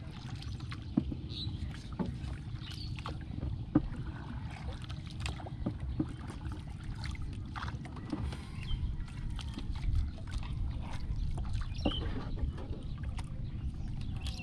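Small wooden boat on the river: a steady low rumble of water and wind, with scattered light clicks and knocks in the boat as fishing line is handled.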